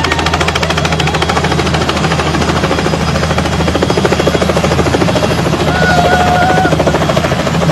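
Light helicopter's two-bladed main rotor chopping in a fast, even beat, with the engine running steadily, as it hovers low near the ground.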